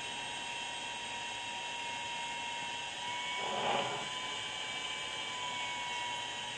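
Infrared BGA rework station running during a chip reflow, a steady hiss with a faint high whine. About three and a half seconds in, a brief rustle as the heat lamp and its glass shield are moved.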